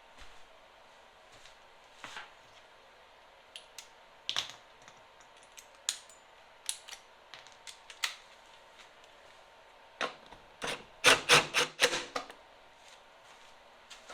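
Bolts of the snowblower's plastic belt cover being tightened with a hand tool: scattered clicks and knocks, then a fast run of loud ratchet-like clicks about ten seconds in.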